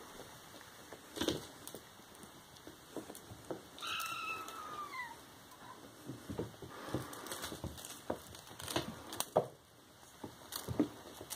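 Ginger kittens playing on a wooden floor: scattered light thumps, knocks and scuffles of paws and bodies on the boards and mat. About four seconds in, one kitten gives a single meow that falls in pitch.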